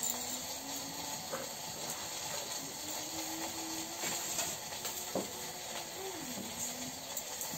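Steady hiss of a wood fire burning in a clay stove under an empty steel wok, with a few light clicks. A faint low hum in the background dips in pitch twice.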